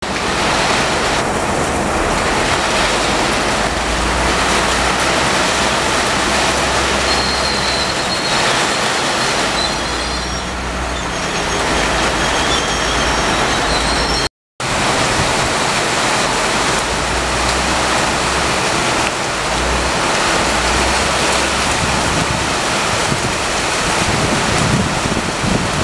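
Steady hiss of heavy rain, with the low rumble of a passing passenger train underneath. The sound drops out for a moment about halfway through.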